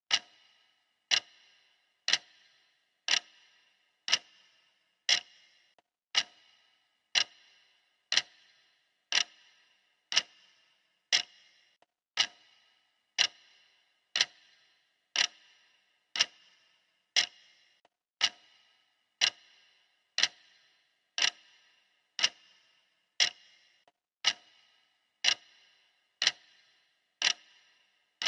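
Clock ticking steadily, one sharp tick a second, each with a brief ring.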